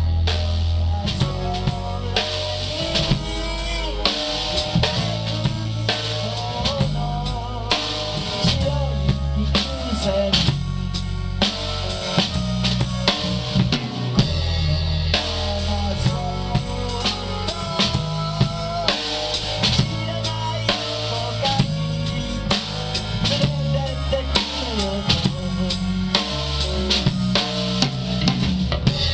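Instrumental passage of a band song: a drum kit keeps a steady beat with kick and snare, under a bass line and a melodic lead line.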